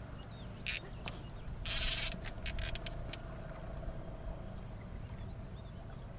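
A boat motor hums steadily at low pitch, with a thin whine over it for a second or so. A brief hiss and a few short sharp clicks come about one to three seconds in.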